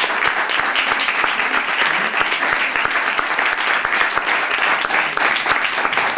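Theatre audience applauding steadily: many hands clapping at once.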